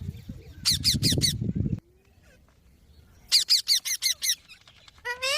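Green parrot calling in two quick series of short, repeated falling notes, about four and then about six, with another call starting near the end. A low rumbling noise underlies the first couple of seconds and then stops.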